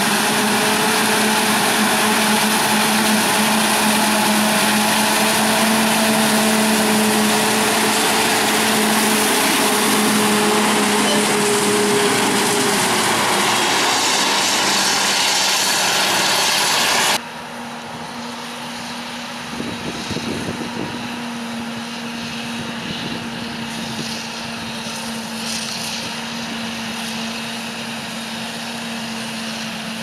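Claas Jaguar 970 self-propelled forage harvester running flat out while chopping maize and blowing it into a trailer, mixed with a tractor engine pulling alongside: a loud, steady mechanical drone. About 17 seconds in, it drops suddenly to a quieter, more distant drone.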